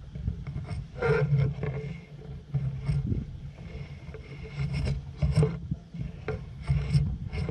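Low rumble of wind buffeting the microphone, with irregular rustling and scraping from the leaves and twigs around the camera every second or two.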